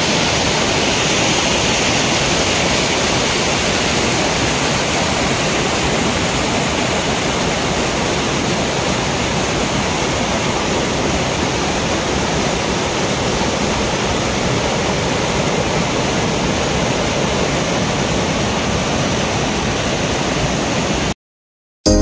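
Waterfall of several stepped drops, water rushing steadily over rock in a loud, even roar that cuts off suddenly near the end.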